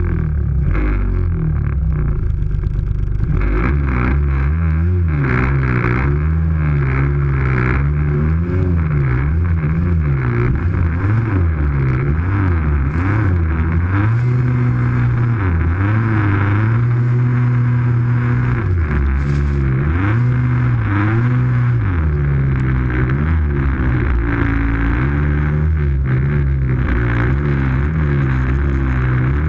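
Snowmobile engine running close to the microphone, its pitch rising and falling again and again as the throttle is opened and eased off while riding.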